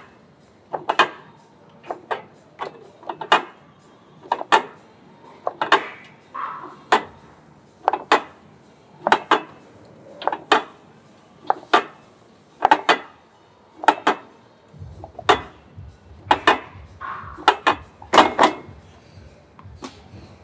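Metal clanks from a plate-loaded squat machine being worked through reps, about one clank a second and sometimes two in quick succession.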